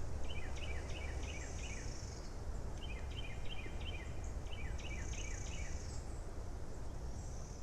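A wild bird calling outdoors in two runs of short notes, each dropping in pitch at the end, about three a second, with a short break about two seconds in. Insects hiss faintly and come and go, over a steady low wind rumble on the microphone.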